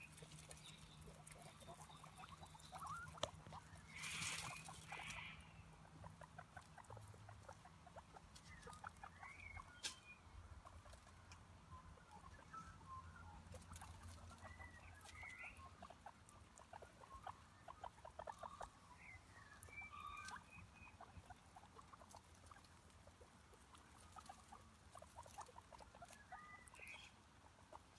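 Faint animal sounds: short high chirps now and then over scattered light rustling and clicks, with a brief louder rustle about four seconds in.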